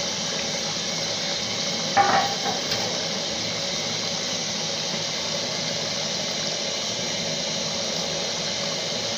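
Pot of jollof rice boiling hard, a steady bubbling hiss with steam, with one short metallic clank about two seconds in.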